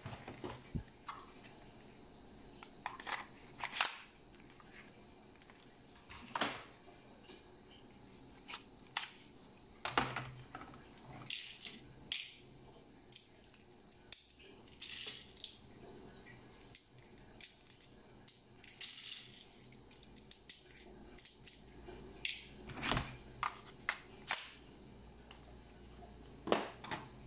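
Plastic toy pellet guns being handled: scattered clicks, rattles and knocks of plastic parts being worked and guns being set down on a table.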